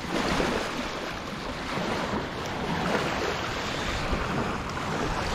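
Shallow river water splashing and sloshing as someone wades in at the bank, with wind noise on the microphone.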